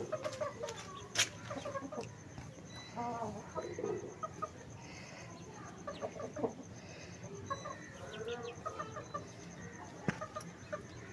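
Chickens clucking softly in short scattered calls, with two sharp clicks, one about a second in and one near the end.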